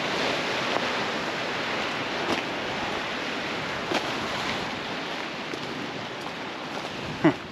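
Steady rush of ocean surf and wind on the microphone, with a few faint knocks. A short, loud sound with a bending pitch comes near the end.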